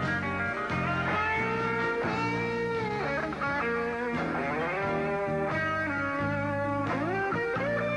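Instrumental country music: a guitar lead playing notes that slide up and down in pitch over a steady bass and rhythm backing.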